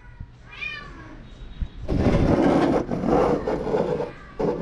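A house cat meowing: one short meow that rises and falls about half a second in. From about two seconds in comes a longer, louder stretch of rough noise.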